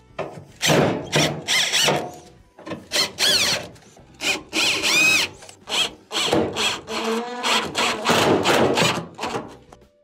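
Cordless drill/driver running in many short bursts, its motor whine rising and falling in pitch, as screws are driven back into a dryer's door hinge.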